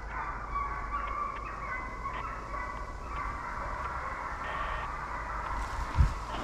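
A pack of hunting hounds baying together, many voices overlapping, in full cry as they run game. About six seconds in there is a single low thump.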